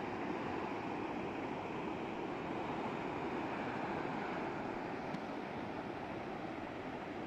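River water pouring steadily over a concrete weir: a continuous, even rushing noise.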